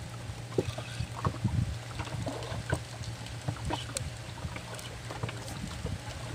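A small fishing boat's engine running steadily with a low hum. Scattered short knocks and clicks from handling on board can be heard over it.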